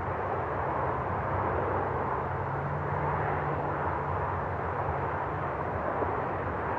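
Steady rushing drone of a jet airliner flying overhead, with a low hum under it.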